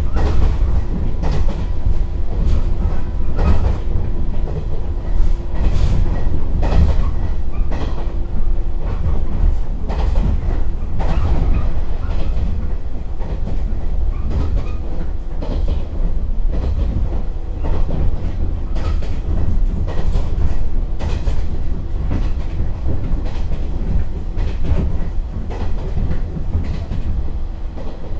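Interior running sound of a JR 115-series electric train car (KuHa 115-552) at speed: a steady low rumble from the bogies, with the clattering rattle typical of the KuHa 115-550 subseries trucks. The wheels clack over rail joints every second or two, over a steady hum.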